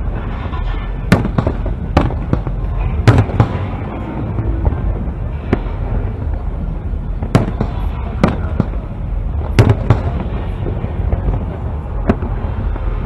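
Aerial fireworks shells bursting: about a dozen sharp bangs at irregular intervals, some in quick pairs, over a steady low rumble.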